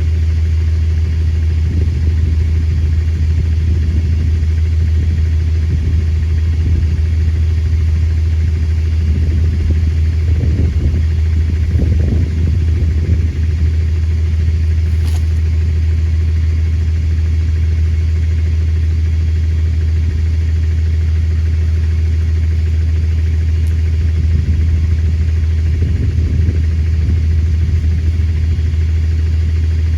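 An engine idling steadily, a loud low hum that holds even throughout, with a couple of rougher stretches about ten seconds in and again near the end, and one sharp click midway.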